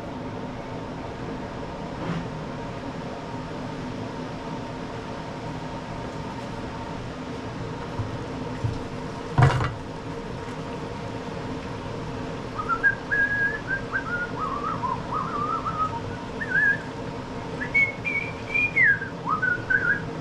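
A person whistling a wandering tune in short phrases, starting a little past halfway, over a steady hum. A single sharp knock comes just before the whistling begins.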